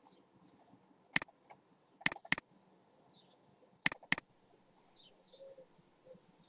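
Computer mouse clicking: a single click about a second in, then two double-clicks, near two and four seconds in. Faint bird chirps in the background.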